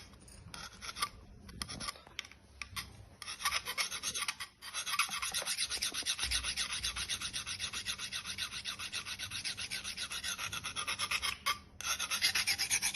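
Kitchen knife blade scraped back and forth against a handheld steel file (sharpening rod), sharpening the edge. A few separate scrapes at first, then about four seconds in a long run of rapid, even rasping strokes, with a brief pause near the end before they resume.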